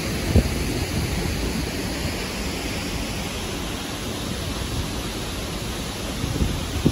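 Steady rushing of a large waterfall, with a couple of brief low wind thumps on the microphone, one near the start and one near the end.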